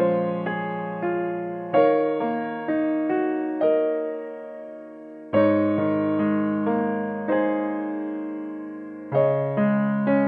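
Background music: a slow solo piano piece, its notes struck and left to fade, with louder chords struck about two, five and nine seconds in.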